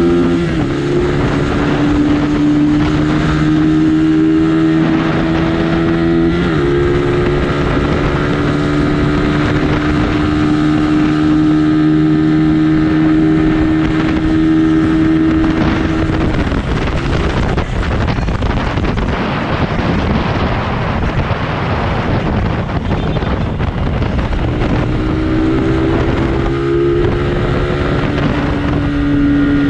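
Suzuki Raider R150's single-cylinder engine running hard at highway speed, heard from on the bike with wind rushing over the microphone. About six seconds in the note dips and climbs again at a gear change, then it holds a steady high pitch. About halfway through the engine note fades into wind roar as the bike slows, and it returns near the end.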